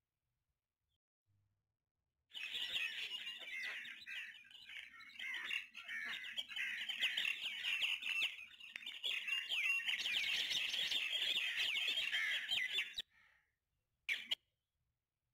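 A dense chorus of many small birds chirping and twittering over one another. It starts about two seconds in and cuts off abruptly near the end, with one short burst of the same just after.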